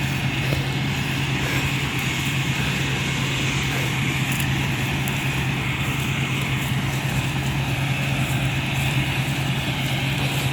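Combine harvester running steadily while it cuts oats: a constant engine drone with a low hum and the steady noise of the header and threshing machinery.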